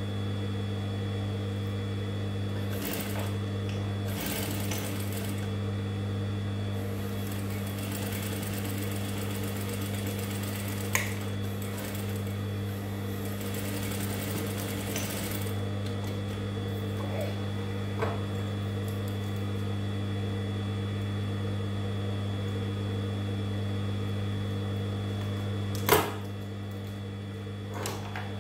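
GEMSY industrial lockstitch sewing machine top-stitching the pleats and elastic of a fabric face mask: the motor gives a steady hum with a high whine, and the needle runs in stretches, briefly about three seconds in and then for several seconds from about eight seconds. A few sharp clicks, the loudest near the end.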